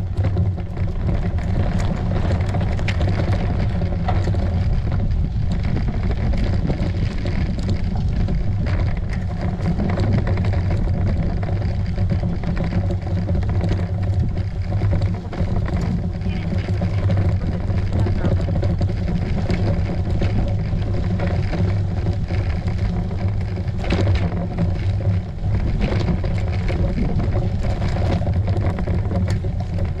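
A bicycle rolling over a bumpy dirt track, heard through a GoPro action camera mounted on the bike: a steady low rumble with many small knocks and rattles from the bumps.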